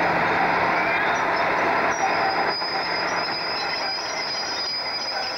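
British Rail diesel locomotive running past, its engine drone fading away after about three seconds. A thin, high, steady wheel squeal sets in about two seconds in.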